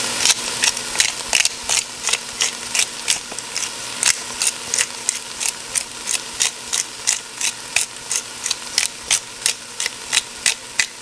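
Pepper grinder being twisted to grind black pepper, its mill mechanism clicking in a steady run of about three to four clicks a second that stops near the end.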